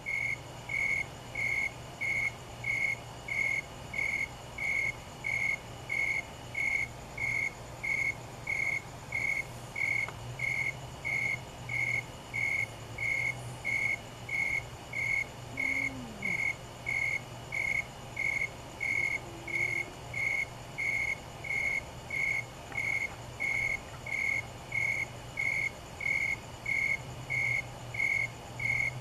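A single cricket chirping in an even, unbroken rhythm, about one and a half high-pitched chirps a second, over a steady low hum.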